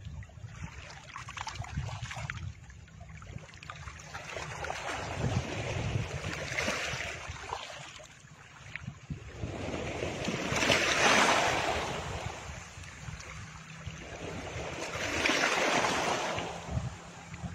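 A rushing noise that swells and fades about every four to five seconds, like surf, over a steady low rumble; the loudest swell comes about two-thirds of the way through.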